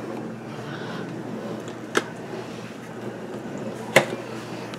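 Steady low hum of room noise, broken by two sharp clicks about two seconds apart, the second the louder.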